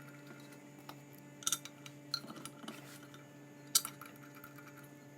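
Small metal clinks and taps as cap screws are fitted and driven into the centrifuge's metal motor mounting: a handful of separate clicks, the sharpest a little under four seconds in, over a faint steady hum.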